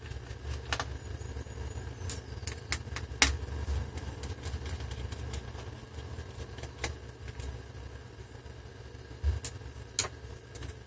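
Steady low hum of a digger's engine working nearby, with scattered small clicks and taps of screws and parts being handled in an opened laptop's drive bay. One sharper click comes about three seconds in.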